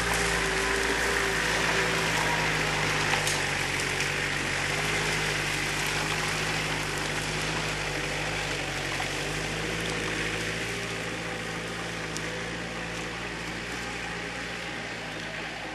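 Jeep Wrangler YJ's engine running at a steady pace while driving, under a constant hiss; the sound slowly fades as the Jeep moves off.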